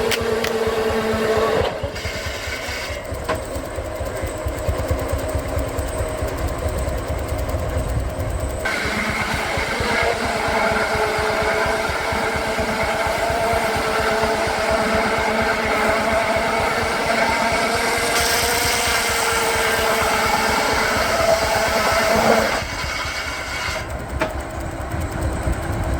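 Steam-driven circular sawmill blade cutting through a log: a steady whine under load that starts about nine seconds in and stops sharply about twenty-two seconds in. Underneath, the Baker steam engine driving the mill runs steadily throughout.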